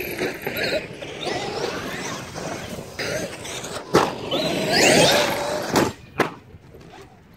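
Electric motors of large RC monster trucks whining, rising and falling in pitch as they are throttled over grass. A sharp crash comes about four seconds in and two more knocks follow near six seconds, as a truck tumbles and lands upside down; then the motors go quiet.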